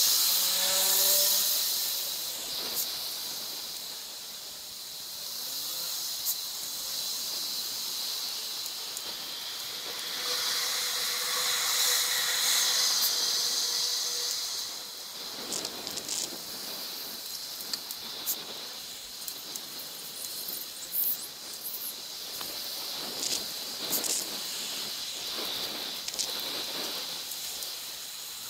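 Steady hiss of wind and tyre noise from a bicycle ride on wet city streets, sped up to triple speed. Scattered short clicks and rattles come through in the second half.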